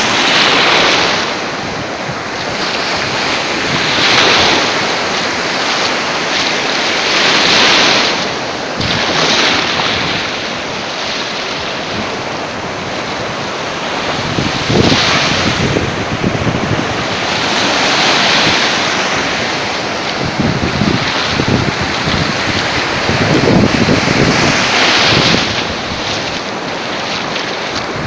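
Sea waves breaking and washing ashore, surging every few seconds, with wind buffeting the microphone.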